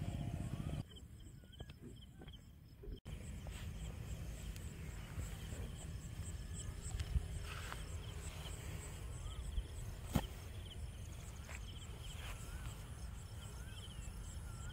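Outdoor rural ambience: birds give short warbling calls over a rapid high chirping and a steady low rumble. A single sharp click sounds about ten seconds in.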